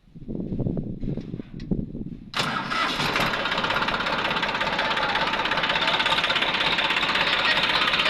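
New Holland tractor's diesel engine cranked on its electric self-starter for about two seconds, then catching and running at a steady idle with a fast, even exhaust beat. The aftermarket turbo whistle fitted to the exhaust silencer adds a whistling hiss over the engine.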